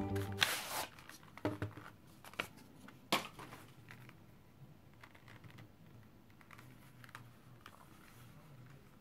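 A kraft-paper band slid off a leather wallet with a short papery rustle, then a few light clicks and taps as the wallet is handled, the third the sharpest. Faint handling of the leather follows.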